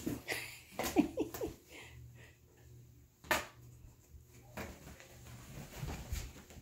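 Kittens scuffling and pouncing on a futon and around a cardboard box: scattered soft knocks and rustles, with one sharp knock about three seconds in. A brief vocal sound about a second in.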